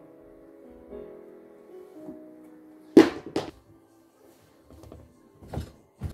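Soft background music with gentle held notes that stops about halfway, then two loud thuds close together and a softer knock near the end, from shoes being handled and put into a shoe cubby.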